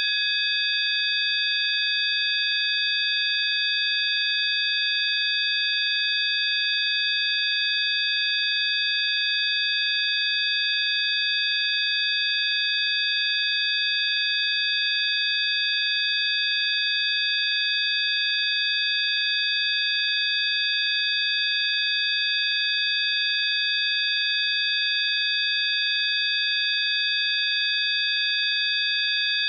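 Several steady high-pitched pure tones from a synthesized sound-healing frequency track, sounding together as one unchanging drone over a faint hiss.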